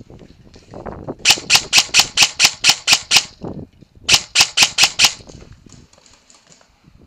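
Airsoft electric rifle (VFC HK416 AEG) firing: a quick string of about nine sharp shots at roughly four to five a second, a short pause, then about five more.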